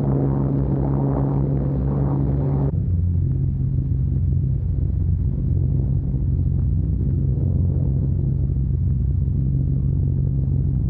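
Short Stirling heavy bomber's four radial engines droning steadily in flight, heard from inside the aircraft. About three seconds in, the higher part of the noise drops away and a lower drone carries on.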